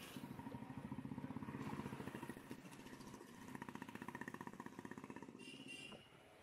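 A motorcycle engine running close by on the street, its rapid firing pulses clear. It eases off about halfway through and picks up again.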